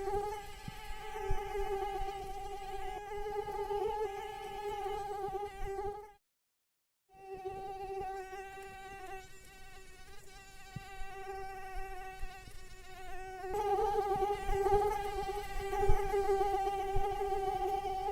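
Mosquito whining in flight: a steady high drone with its overtones. It cuts out completely for about a second some six seconds in, comes back fainter, and grows louder again about two-thirds of the way through.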